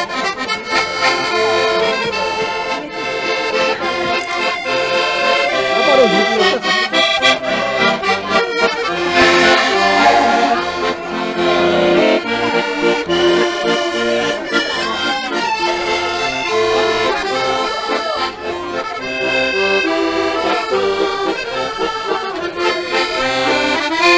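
Hohner button accordion playing a tune, with melody notes over a steady pulsing bass accompaniment.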